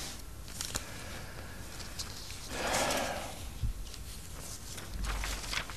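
Quiet studio room tone with a few faint clicks and one soft rustle about three seconds in.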